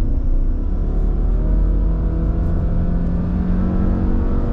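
Subaru Crosstrek's 2.5-litre flat-four engine heard from inside the cabin under a strong low road rumble. The CVT in sport mode keeps the revs high, and the engine note climbs gently as the car pulls through the bends.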